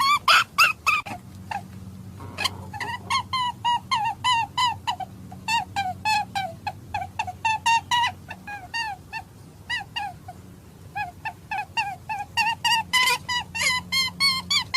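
Rabbit distress call played as a hunting lure: rapid series of short, high, falling squeaks, about three to five a second, louder in bursts at the start and near the end, over a steady low hum.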